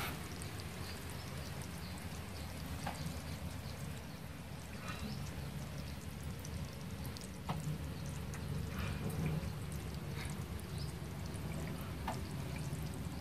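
Hundreds of baby black apple snails feeding on soft vegetable pieces in a tank: faint, scattered clicks and crackles over a steady low hum.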